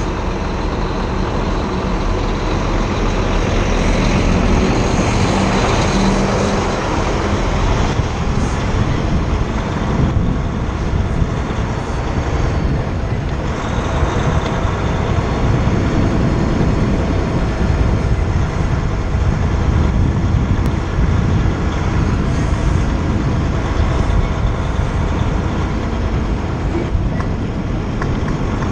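Semi truck's diesel engine running as the tractor-trailer maneuvers at low speed to back into a loading dock, heard from a camera mounted outside the cab, with a steady rumble that covers the whole sound.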